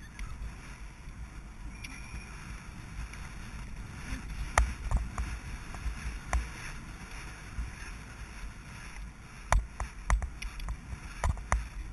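A horse cantering along a soft forest track, heard from the rider's helmet: a steady rumble of hoofbeats and rushing air, with several sharp knocks from about four seconds in.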